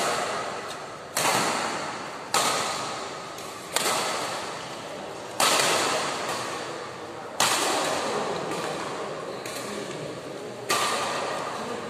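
Badminton rackets striking a shuttlecock back and forth in a rally: about six sharp smacks, spaced one to three seconds apart, each ringing on in the reverberation of a large hall.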